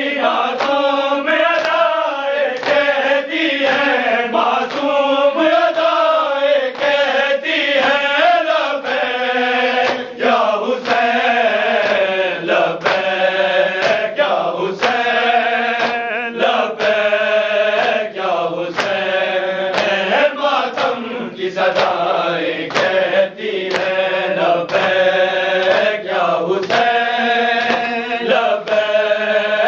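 A group of men chanting a Shia noha (lament) in unison, with rhythmic chest-beating (matam): hands slapping on chests in a steady beat under the voices.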